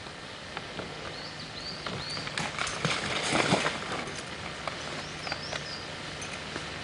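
Footsteps and rustling of people moving through forest undergrowth, loudest a few seconds in, with a bird giving a few short high chirps early on and again near the end.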